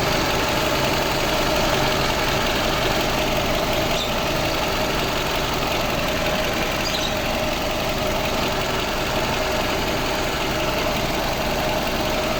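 Toyota Camry engine idling steadily, with a steady high note running through it.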